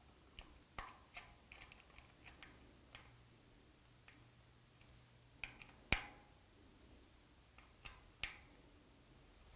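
Hex key working in the small socket head cap screws of a DRO read head on a lathe cross slide: scattered faint metallic clicks and ticks, the sharpest about six seconds in.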